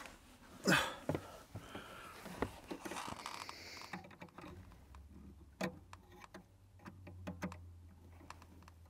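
Irregular light clicks and taps of fingers and needle-nose pliers working on the clutch pedal assembly and its assist spring, with a brief rustle about a second in and a faint low hum in the second half.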